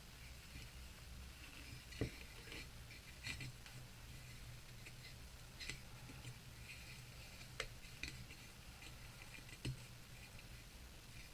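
Seam binding being handled on a bow maker: a few scattered light clicks and taps, the sharpest about two seconds in, over a low steady hum.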